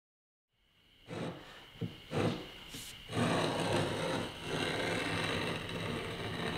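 Cherry boards being handled on a wooden workbench: a few wooden knocks, then from about three seconds in a continuous scraping of a board sliding over the bench top.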